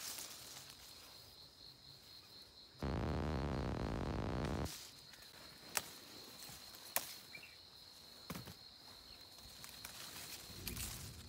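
Peach-tree leaves rustling as a hand moves through the branches to pick the fruit, with a few sharp clicks and an insect trilling steadily in the background. About three seconds in, a loud, low rushing noise lasts nearly two seconds and cuts off suddenly.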